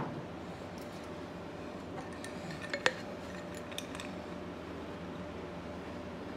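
A sharp knock on a workbench, then a couple of clicks and a few lighter taps about three seconds in, from a hand-made steel gasket cutter and a cut rubber gasket being handled, over a steady low room hum.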